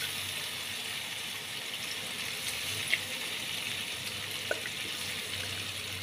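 Yogurt-marinated beef slices frying in oil in a nonstick wok over a low flame: a steady sizzle with a few faint pops.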